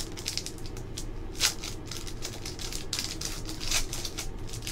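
Foil trading-card pack wrapper crinkling and cards being handled: scattered soft rustles and crackles, with the sharpest crackles about a second and a half in and again near the end.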